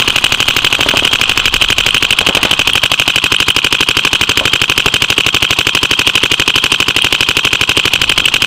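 Dye DM12 electronic paintball marker firing a long, rapid, even stream of shots, well over ten a second, heard close from a camera mounted on the marker.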